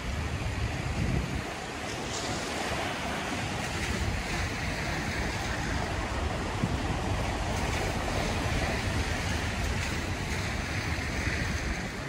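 Wind rushing steadily, with a low rumble of wind buffeting the microphone.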